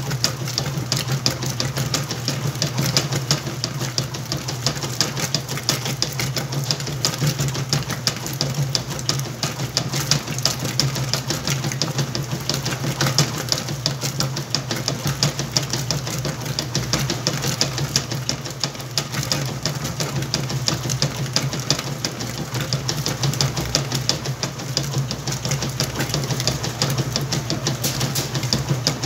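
Whirlpool washing machine running a load of towels: a steady motor hum with a busy, fast ticking rattle over it, unchanging throughout.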